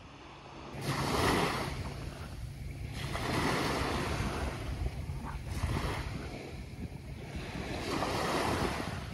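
Small waves washing onto the beach, swelling and falling back every couple of seconds, with wind rumbling on the microphone.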